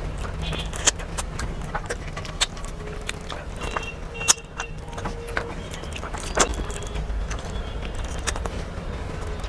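Close-up eating sounds from food eaten by hand: chewing and mouth smacks heard as a scattering of sharp clicks over a steady low hum.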